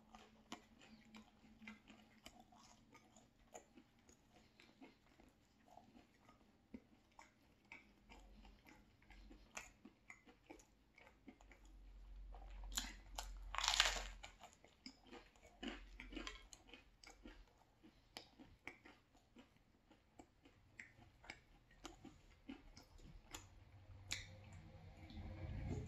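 Close-up chewing of pizza: soft, faint wet mouth clicks and smacks, with one louder mouth sound about fourteen seconds in.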